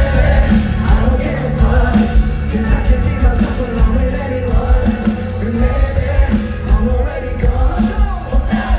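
A metalcore band playing loudly live, with a steady drum beat, cymbals and heavy guitars, and singing over the top.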